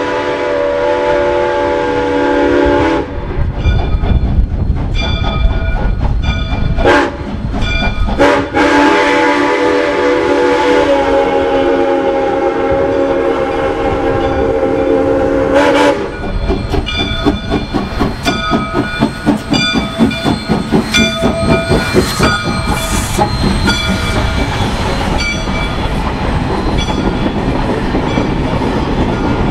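Soo Line 1003, a 2-8-2 Mikado steam locomotive, blowing its steam whistle: a blast that cuts off about three seconds in, then a long blast of about seven seconds in the middle, with two short sharp sounds between them. After the whistle stops, the locomotive's exhaust chuffs in a quick, steady rhythm as it works by with its train.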